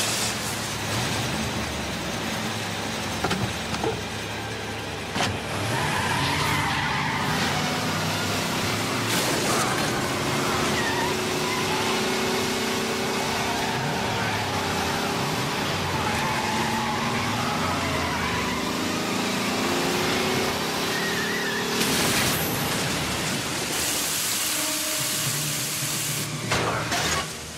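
Film sound effects of a car scene: a car engine running and tyres skidding in a dense mix, with sudden loud hits at several points.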